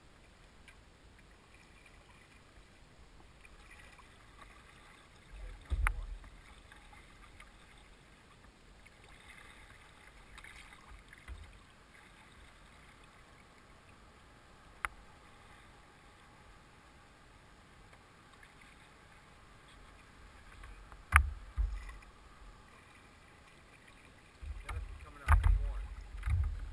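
Sounds of a paddled boat under way: a quiet wash of water along the hull, broken by a few sharp knocks and low thumps, with a cluster of them near the end.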